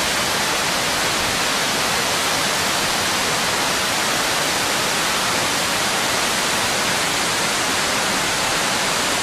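Waterfall: falling water rushing in a loud, steady, unbroken wash of noise.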